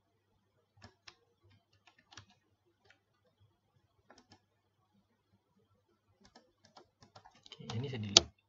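Computer keyboard and mouse clicks: scattered single clicks, then a quickening run of keystrokes about six seconds in that builds to a denser, louder clatter and ends with a sharp click.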